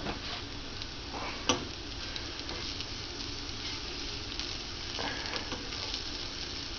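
Pre-browned sausage crumbles and diced onion sizzling in a nonstick frying pan over a high gas flame. A spatula stirring and scraping in the pan adds a few short clicks, the sharpest about one and a half seconds in.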